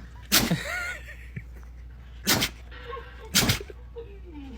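Dog sneezing three times, each a short sharp burst: one near the start, one about two seconds in and one just after three seconds.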